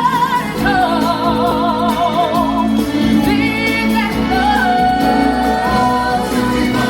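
Music with a woman singing long, wavering notes with strong vibrato over a steady accompaniment.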